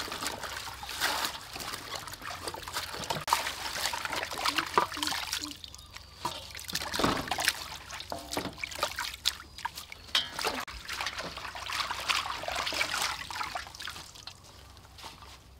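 Hands swishing lettuce and herbs in a stainless steel bowl of water: water splashing, sloshing and dribbling off the leaves in uneven bursts, growing quieter near the end as the washed leaves are lifted out.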